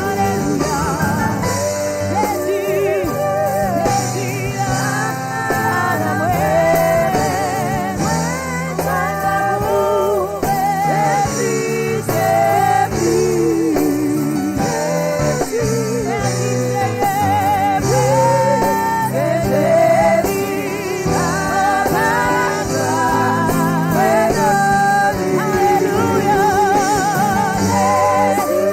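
Congregational gospel worship singing with instrumental accompaniment, voices holding long notes with vibrato over sustained low chords.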